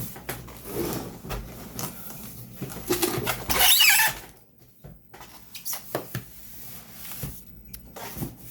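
Cardboard shipping box and its packing being handled as the boxed PC case is flipped over and the box lifted off: scattered knocks and rustles, with a loud scraping rush of cardboard about three and a half seconds in.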